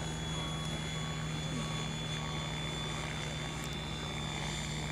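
Radio-controlled aerobatic model helicopter in flight, its rotors and motor giving a steady drone with a thin high whine held on one pitch.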